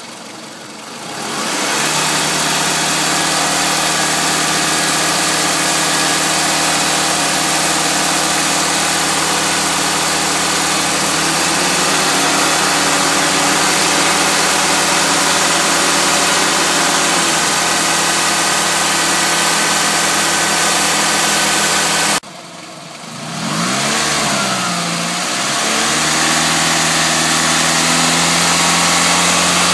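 The 2006 Toyota Highlander's 2.4-litre 2AZ-FE four-cylinder engine idles steadily, close up and warmed up. About two-thirds of the way through there is a sudden break, and the engine note dips and recovers before settling again.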